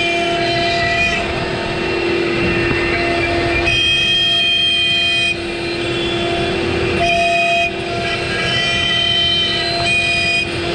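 CNC router spindle running with a steady whine while its bit cuts a path through a thick softwood board. Higher tones come and go several times as the cut loads and eases. The feed rate is too fast for the cut.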